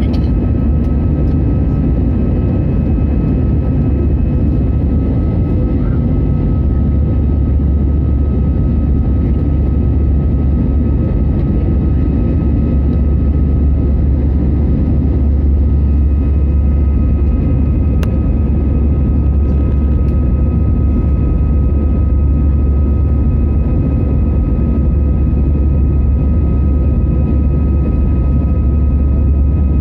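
Inside the cabin of an Airbus A320-200 airliner: the steady rumble of the engines and airflow, with faint steady whining tones above it. The low rumble grows a little stronger about a quarter of the way in.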